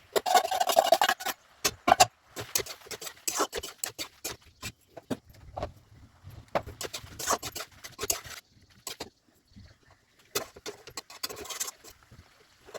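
Irregular knocking, clinking and scraping of kitchen utensils against cookware, a sharp knock every half second or so with a few brief scrapes.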